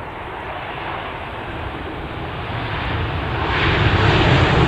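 Jet airliner's engines, a steady rushing rumble that grows steadily louder as the aircraft approaches, swelling sharply near the end.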